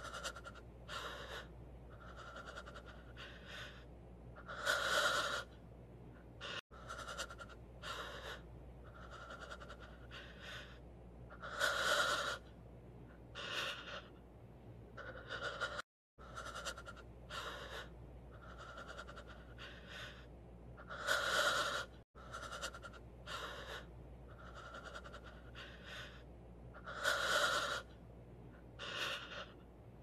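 A person panting heavily, out of breath: quick ragged breaths with a louder, drawn-out wheezy gasp every several seconds. The sound cuts out briefly a few times and starts again.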